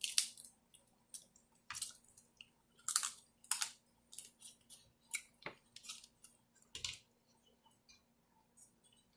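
Close-miked eating: chewing and crunching in a run of irregular crisp cracks and clicks, thinning out after about seven seconds.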